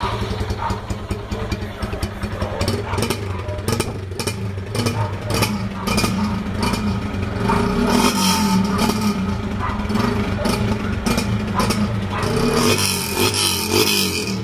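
Vehicle engine running through a loud aftermarket 'turbo' exhaust, rumbling steadily and revved up a few times, with crackles in the exhaust note.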